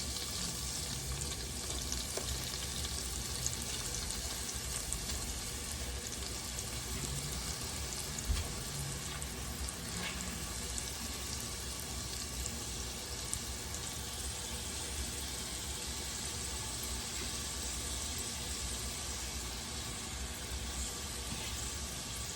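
Chicken pieces sizzling as they fry in hot butter and olive oil in a pot over medium-high heat, a steady hiss with small crackles and a light knock about eight seconds in.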